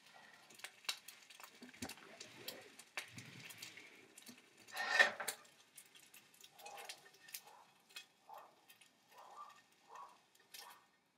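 Plastic spatula scraping and clicking against a nonstick skillet, with a louder clatter about five seconds in as the pan is lifted off the gas burner. A run of short, softer scrapes follows as the cooked turkey slices are pushed from the pan onto a plate.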